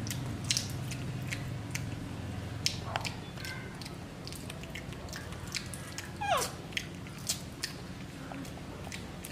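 Baby macaque chewing steamed egg, with many small wet mouth clicks and smacks. About six seconds in it gives one short call that falls in pitch.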